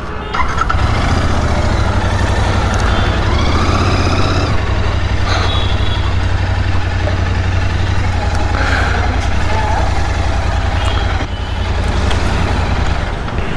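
Royal Enfield Continental GT 650's parallel-twin engine running with a steady low beat.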